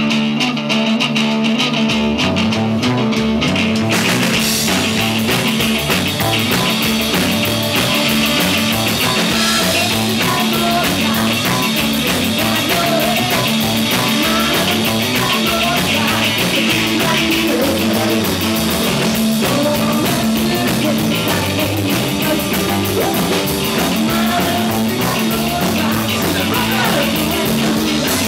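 Rock band playing a song live: an instrumental opening, with bass coming in about two seconds in and drums with cymbals about four seconds in, then the full band playing on steadily.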